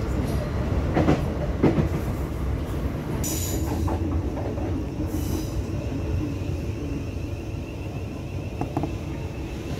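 Class 455 electric train running, heard from inside the carriage: a steady low rumble of wheels on the track, with two clicks about a second in and two brief high-pitched squeals from the wheels or brakes, a few seconds apart, as it runs into a station.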